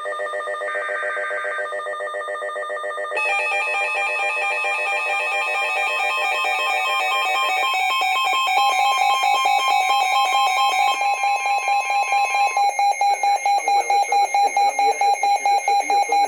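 A weather radio's electronic alert alarm sounding for an Emergency Alert System severe thunderstorm warning. It starts as a steady multi-tone alarm over a short buzzy data burst of the alert header, steps up in loudness about three seconds in, and from about twelve seconds in beats in sharp pulses about three times a second.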